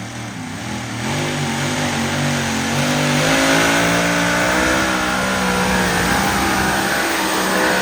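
Pulling vehicle's engine revving and running hard under load. It grows louder over the first two to three seconds, then holds steady with its pitch wavering.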